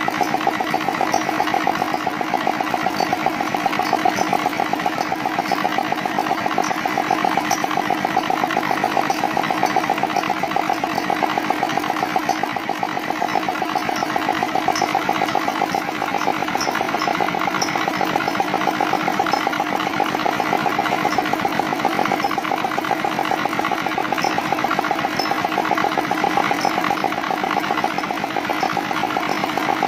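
Single-cylinder Dongfeng R175A diesel engine running steadily, its fast firing pulses even throughout.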